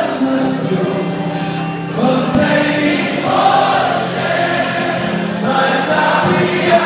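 A large crowd singing together in unison along with live band music, the voices held in long sustained notes.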